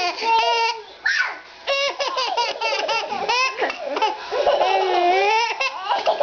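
Baby laughing hard in repeated high-pitched bursts, with a longer drawn-out squeal in the second half.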